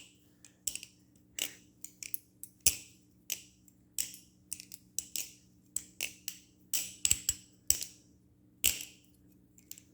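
Balisong (butterfly knife) being flipped: the handles clack against each other and the blade's pins in a long run of sharp, irregular clicks, often in quick pairs, about two or three a second.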